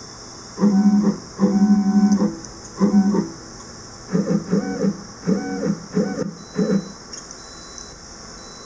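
Stepper motors of a Dyna 3000 CNC lathe whining at one steady pitch in about seven short jog moves, each a fraction of a second to nearly a second long, as the tool is inched up to touch off on the workpiece.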